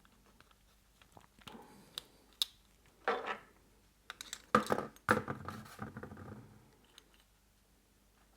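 Metal engine parts and hand tools clinking and knocking as a radial engine is taken apart by hand. A few light clicks and short ringing taps come first, then a cluster of louder knocks and rattles from about four and a half to six and a half seconds in.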